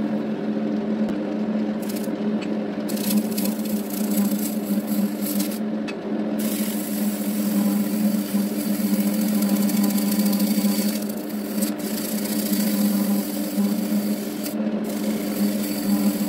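Wood lathe running with a steady motor hum while a turning tool cuts the end face of the spinning wood blank. The scrape of the tool peeling off shavings comes in short spells at first, then runs almost without break from about six seconds in.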